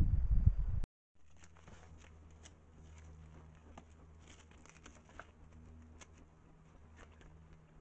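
A loud low rumble that cuts off sharply under a second in. Then faint, scattered clicks and taps from desert bighorn sheep drinking at a small rock pool, over a low steady hum.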